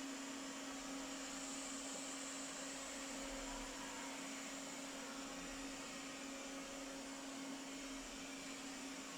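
Robot vacuum cleaner running steadily: an even motor hum with one steady tone under the hiss of its suction.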